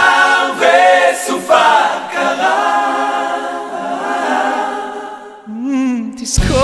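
Voices singing without instruments, holding long notes. Near the end the singing thins to a single wavering voice, then bass comes back in.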